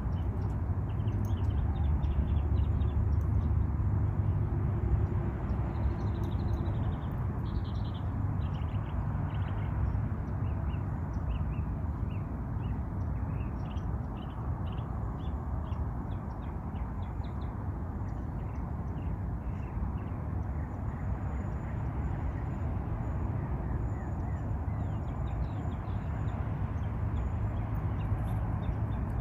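Outdoor ambience: scattered short bird chirps over a steady low rumble, the rumble heavier in the first several seconds.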